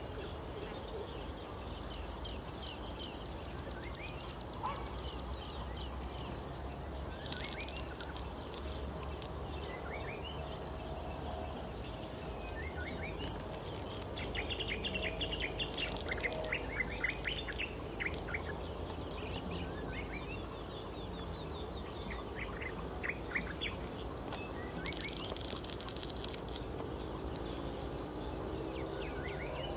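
Birds chirping and trilling over a steady insect drone, with a busier run of rapid trills about halfway through.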